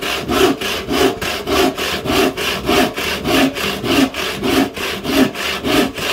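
Hand crosscut saw cutting through a wooden board in quick, even back-and-forth strokes, about two and a half full strokes a second. It runs smoothly, with no grabbing or catching: it goes right through.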